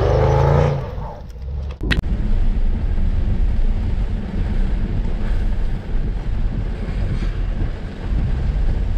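The tail of an intro music sting, cut off with a click about two seconds in. Then the cabin of a Range Rover Sport driving in heavy rain: a steady low rumble from the car and road, with the hiss of rain on the windscreen.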